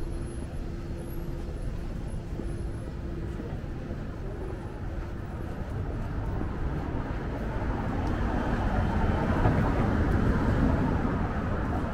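City street traffic, with a passing vehicle growing louder over the second half and loudest shortly before the end.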